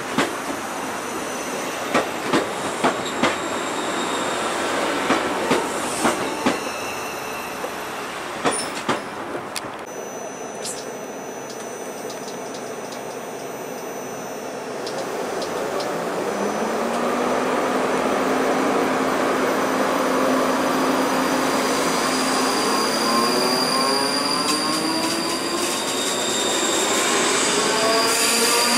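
ScotRail Class 334 electric multiple unit running past, its wheels clacking over rail joints in quick groups of beats. After a cut, an electric multiple unit pulls away: its traction motors give a steady hum that turns into a rising whine of several tones climbing together as it accelerates.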